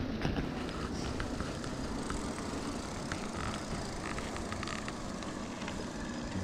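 Riding noise from an e-bike on an asphalt path: a steady rush of wind on the microphone and tyre hum, with a few faint ticks.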